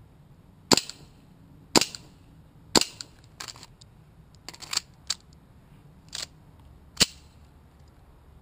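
Gas-powered airsoft race pistol test-firing: four sharp shots, the first three about a second apart and the last near the end. In between, about three to six seconds in, come several fainter pops and clicks. The pistol is running low on gas, which the shooter says is why it is not feeding.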